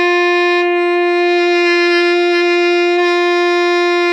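Alto saxophone holding one long, steady note, the D played with the octave key, as a long-tone exercise for a bigger, more resonant sound.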